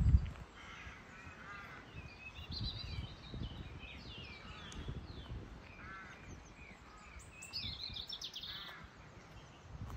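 Several birds calling outdoors, with short chirps repeating throughout and a quick run of high notes near the end. A loud low thump comes right at the start, with softer low thumps under the calls.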